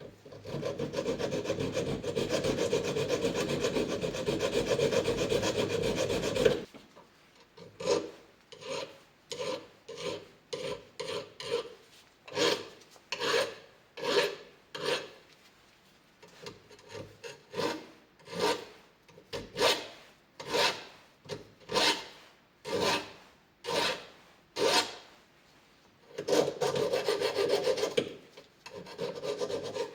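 Material being ground off a bicycle fork part to make it fit: a steady grinding for about six seconds, then separate rasping strokes roughly one a second, then steady grinding again near the end.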